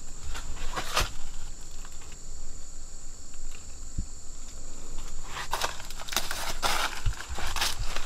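Dry leaf litter crunching and crackling underfoot, once about a second in and several times in the last three seconds, over a steady high insect trill.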